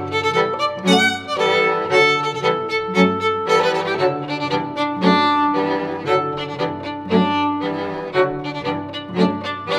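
Instrumental background music: a melody of sustained notes, changing every second or so, over a regular low pulse.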